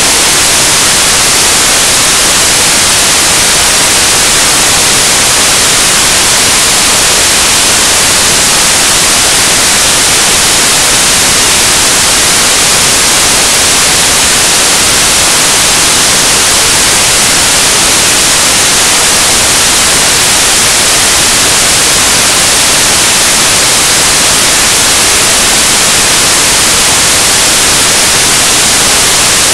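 Loud, steady hiss of static covering the whole sound track, unchanging, with no ball bounces, voices or other sounds standing out.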